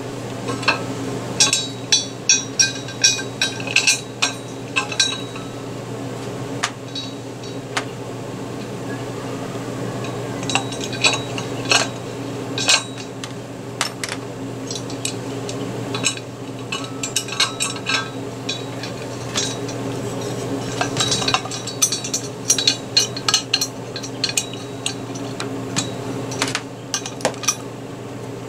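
Steel bolts, nuts and washers clinking and ringing against a metal bracket as they are fitted by hand, in several bunches of sharp metallic clicks. A steady low hum runs underneath.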